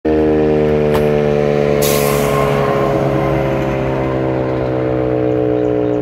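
Outdoor emergency warning siren sounding a loud, steady tone that drifts slowly lower in pitch, during a routine monthly test of the nuclear-plant alert sirens. A short rush of noise comes about two seconds in.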